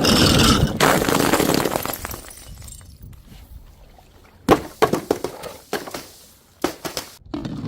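Glass bottles shattering: a loud crash at the start that trails off over a couple of seconds, then a series of sharp separate breaking impacts in the second half.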